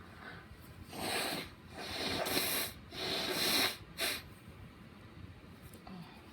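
A person's stifled sneezes, brought on by chhinkni snuff and held back to stay quiet: four sudden, breathy nasal bursts in about three seconds, the last one short.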